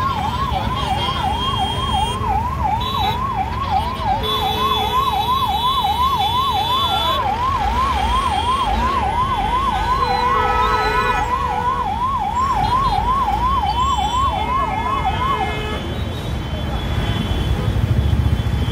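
An emergency vehicle's electronic siren on a fast yelp, sweeping up and down about three times a second, stopping near the end. Several held vehicle horn blasts sound over it, above a steady low rumble of road traffic.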